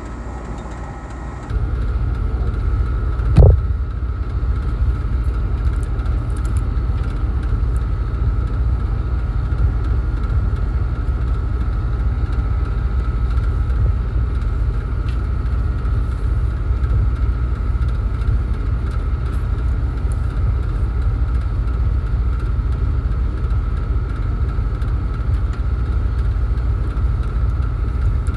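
HVAC package unit running, with a steady whine. A heavy low rumble comes on abruptly about a second and a half in and then holds steady, and there is one loud thump a couple of seconds later.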